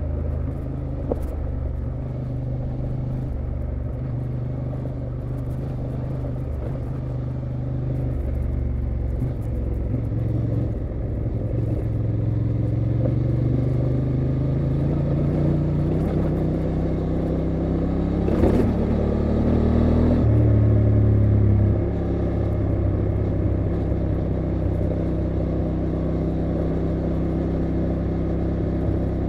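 Honda XL750 Transalp's 755 cc parallel-twin engine running under way on a gravel road. Its note rises steadily as the bike accelerates, then drops abruptly about two-thirds of the way through at an upshift. Light ticking from the gravel runs underneath.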